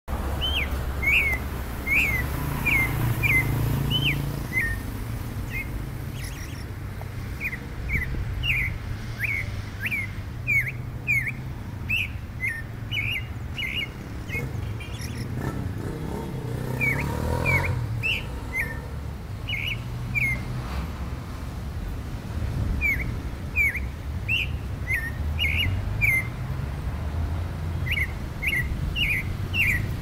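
Clay-colored thrush calling: a long series of short, sharp chirped notes, often two or three a second, in bouts with brief pauses, over a low steady background rumble.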